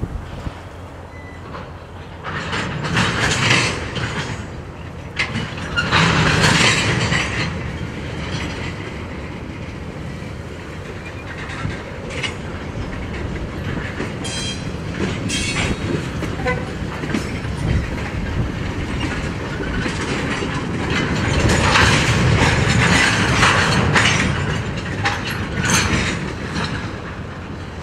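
Freight train of tank cars rolling past, its wheels clacking over rail joints, with louder stretches about 6 s in and again around 22 to 24 s.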